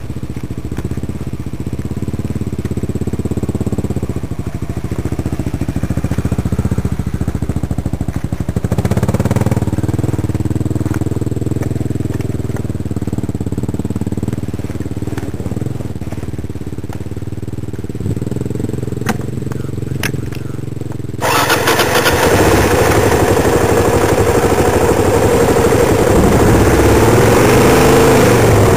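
Dirt bike engine running steadily, its pitch shifting a little about a third of the way in. About 21 seconds in the sound abruptly becomes louder and fuller, with the engine note rising and falling near the end as it revs.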